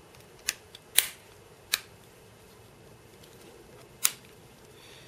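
Sharp plastic clicks as the back cover of an LG Vu phone is pressed and snapped onto the housing: three in the first two seconds, then one more about four seconds in.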